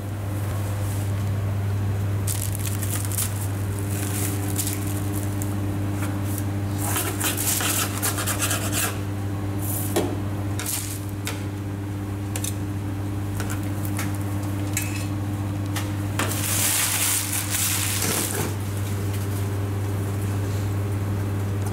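Kitchen handling sounds of a wrap being made and plated: paper rustling as a paratha wrap is rolled, with short scrapes and clatters of steel dishes and utensils on a steel counter and a longer stretch of rustling near the end. A steady low hum runs underneath throughout.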